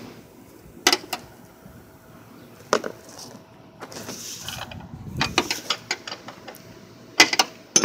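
Hand wrench working the strut's mounting bolts, making scattered sharp metal clicks and knocks: single ones about one and three seconds in, a cluster around five seconds, and a pair near the end.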